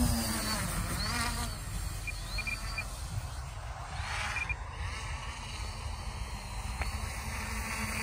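Twin 950 kV electric motors and propellers on a remote-control inflatable raft buzzing as it slides over snow, the whine rising and falling in pitch a few times with the throttle.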